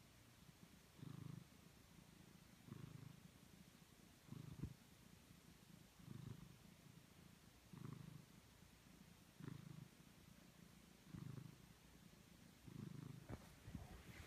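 Domestic cat purring, a low rumble that swells in pulses about every second and a half with its breathing. A few sharp clicks near the end.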